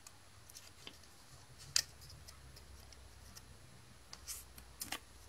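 Faint ticks and light rustling from trading cards being handled and slid out of a plastic card sleeve, with one sharper click a little under two seconds in.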